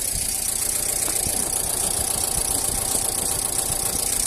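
Car engine idling steadily in the open engine bay, warmed up after running for a while.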